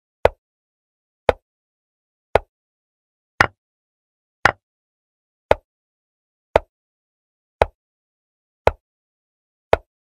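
Chess move sound effects from an online board replay: a short, sharp click of a piece being set down, repeated evenly about once a second, ten times, with silence in between.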